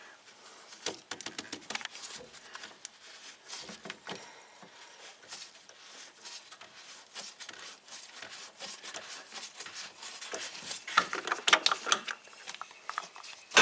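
Scattered light clicks and plastic handling as a coolant reservoir is opened and topped off with Dex-Cool coolant from a jug, with a louder cluster of handling and pouring sounds near the end.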